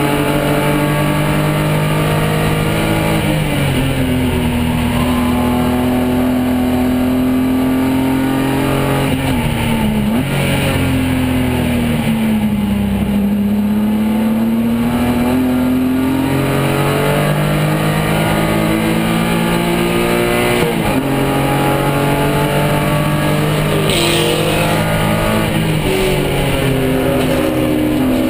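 Cockpit sound of a BMW 328i race car's inline-six engine at racing pace, its pitch rising under acceleration and dropping sharply on braking and downshifts through the corners.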